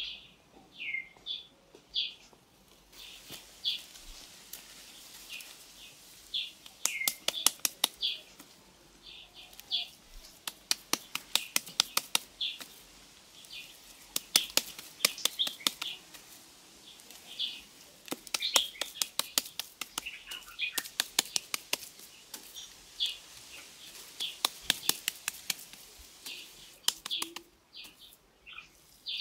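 Small birds chirping with short, high calls repeated throughout, over runs of rapid sharp clicks, several a second, that come and go and are the loudest sound.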